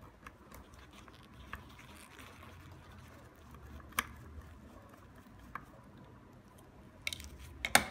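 Faint handling with a few sharp clicks as a small screwdriver backs a 2 mm screw out of an acrylic base, then a quick cluster of louder clicks and taps near the end.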